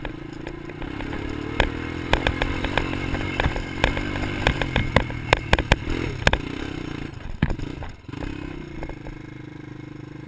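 Quad bike (ATV) engine running under way across sand dunes, with many sharp knocks and clatter from riding over the bumps. About eight seconds in the level dips briefly, and then the engine settles to a steadier, quieter note.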